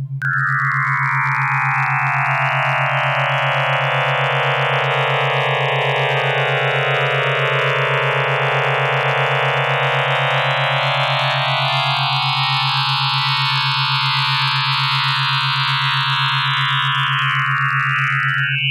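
Computer-generated sound with a hidden picture encoded in it: a harsh wash of many close-packed tones that starts abruptly, spreads wide and narrows again, drawing the outline of a guitar in its spectrogram. It sits over a steady low drone.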